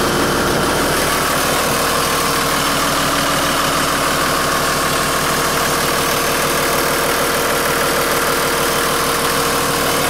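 Toyota turbo diesel engine idling steadily soon after a cold start, with its diesel sound.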